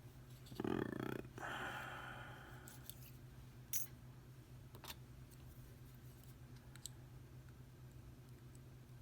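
Handling of the pins and small tools of a disassembled pin-tumbler lock: a few scattered small clicks, the sharpest a little before halfway. A brief breathy sound comes about a second in, over a steady low hum.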